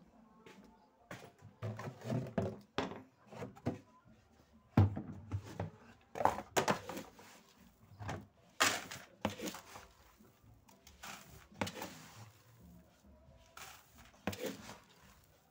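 Irregular knocks, thumps and rustling of things being handled in a small room, with a sharp thump about five seconds in.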